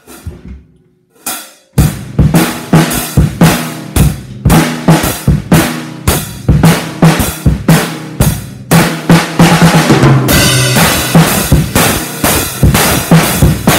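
Child playing a Gammon acoustic drum kit: a couple of single hits, then from about two seconds in a steady, busy beat on bass drum, snare and toms. From about ten seconds in, cymbals ring over the beat.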